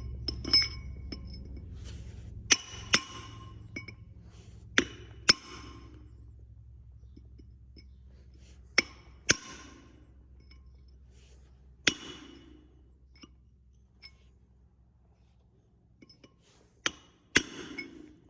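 Steel parts knocked against each other about ten times, irregularly and some in quick pairs, each knock ringing briefly. Under them a low hum fades away over the first half.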